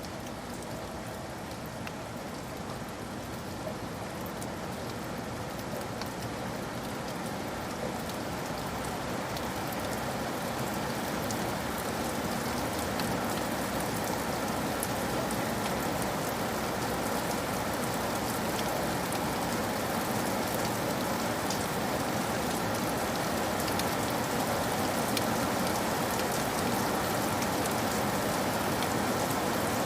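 Steady rain on a roof, a dense patter of drops, slowly growing louder.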